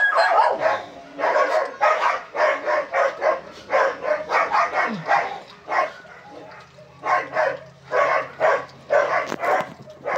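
A dog barking over and over, about two barks a second, with a short lull a little past the middle.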